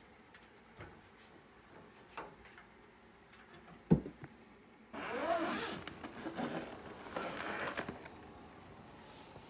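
A cat comes down an aluminium attic ladder with faint paw taps on the rungs, then lands on the wooden floor with a single sharp thud about four seconds in. For the next few seconds there is a rustling brush as the cat's fur rubs against the microphone.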